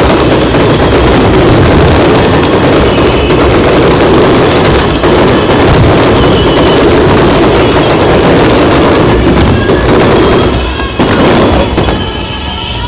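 Fireworks bursting in a loud, dense, continuous barrage that slackens briefly near the end.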